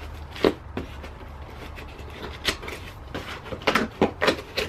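Hands opening a large cardboard box, tugging at its flaps and fastenings: scattered knocks and scrapes of cardboard, several in quick succession near the end.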